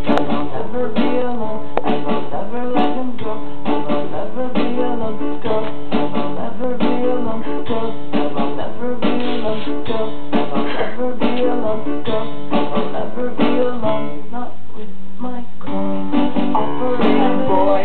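Music playing, led by guitar, with a steady beat.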